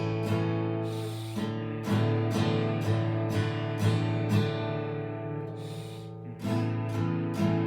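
Guitar strumming chords in a steady rhythm, about two strokes a second, working through the song's E major, A major and D major chords. The strumming breaks off briefly about a second in and again around six seconds in.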